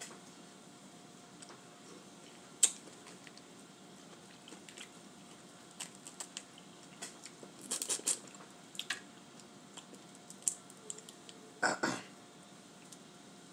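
Boiled crawfish being peeled by hand: shells cracking and snapping in scattered sharp clicks, with soft wet squishing of the meat. The sharpest crack comes about two and a half seconds in, with a cluster of crackling around eight seconds and a short fuller wet burst near the end.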